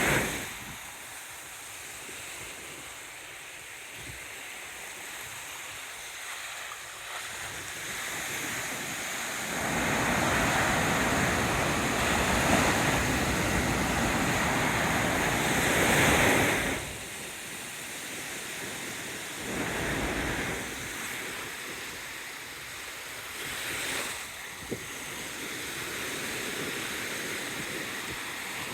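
Small sea waves breaking and washing ashore, with wind on the microphone. The surf swells louder for several seconds in the middle, then falls back.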